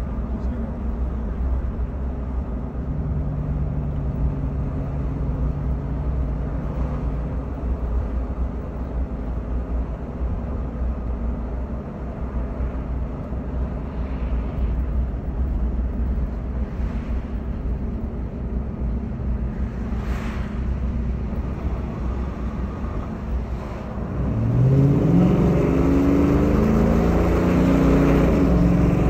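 Pickup truck engine and exhaust, fitted with a resonator delete, custom exhaust pipe and K&N cold air intake, heard from inside the cab while driving: a steady low drone with road noise. About 24 seconds in it gets louder and the engine note climbs as the truck accelerates.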